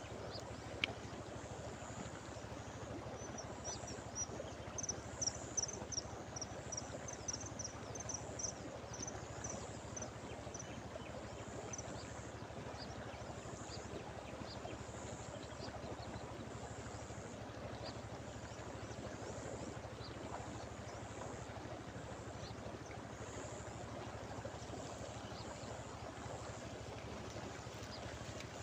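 Steady rush of river water flowing over a shallow run. Quick high chirps come in a run from about three to ten seconds in, with a single click about a second in.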